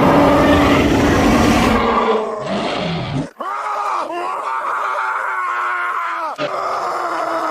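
Primal creature vocal sound effects: a loud, rumbling roar for about three seconds, then cut off abruptly. Wavering, pitched groans and moans follow, with a break between two of them about six seconds in.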